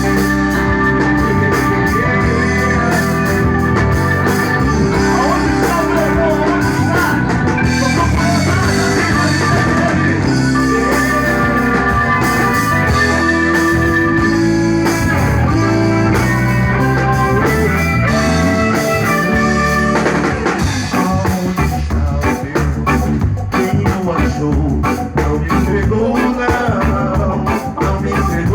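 A band playing the instrumental intro of a reggae-pop (MPB) song: held guitar and keyboard chords over bass and drum kit, turning into a busier, more rhythmic groove about twenty seconds in.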